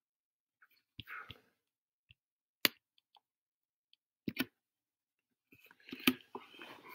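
A handful of sharp, separate computer mouse clicks, about five over several seconds, the loudest about two and a half seconds in, with fainter rustling near the end.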